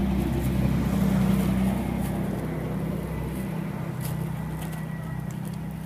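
A motor engine running steadily, a low hum that eases slightly about three and a half seconds in, with a few faint clicks over it.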